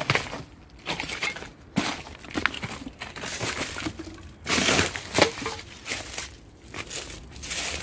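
Footsteps on dry fallen leaves and loose broken debris, at a steady walking pace.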